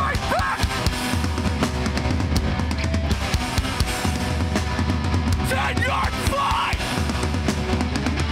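Hardcore punk band playing live: distorted electric guitars and bass over heavy, busy drum-kit playing.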